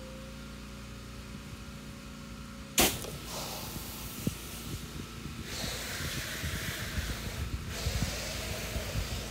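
A steady low hum with a faint steady whine, then about three seconds in a sharp click and the hiss of a pressure-washer wand spraying house-wash soap onto vinyl siding. The hiss wavers and dips twice.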